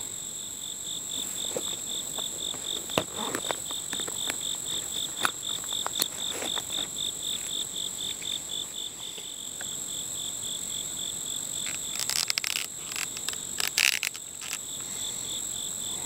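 Insects chirping steadily: an even, rapid pulsed chirp, about four or five a second, over a continuous high drone. Scattered clicks and knocks from a frog gig being fitted onto a whittled wooden stick, in a dense cluster about twelve and fourteen seconds in.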